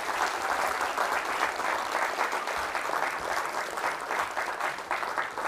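Audience applauding, a dense patter of many hands clapping that thins out to scattered claps near the end.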